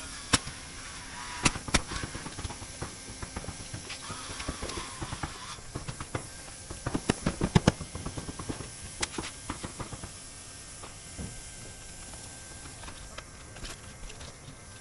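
Irregular sharp knocks and pops from roofing tools striking the roof deck, a few at first and then a quick cluster of strikes about seven to eight seconds in.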